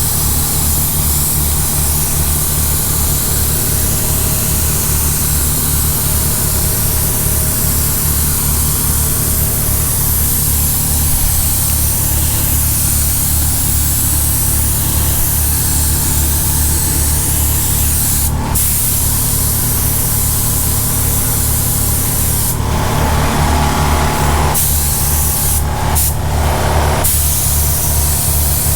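Compressed-air spray gun hissing steadily as it sprays direct-to-metal primer onto a fiberglass bumper, over a low, fast-pulsing machine hum. Near the end the hiss gets louder in several short stretches.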